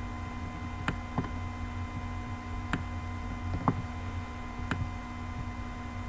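Computer pointer clicks, about five sharp clicks at irregular intervals, over a steady low electrical hum and hiss.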